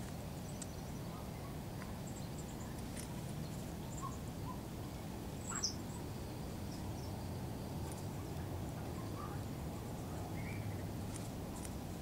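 Outdoor park ambience: a steady low rumble with faint, scattered short bird calls, and one brief sharper chirp about halfway through.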